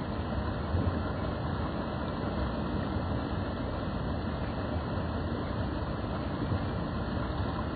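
Fast mountain stream rushing over rocks: a steady, even rush of water.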